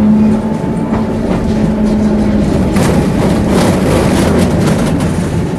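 Electric tram running on its rails, heard on board: a steady hum over a dense rumble, with a spell of rattling about three seconds in.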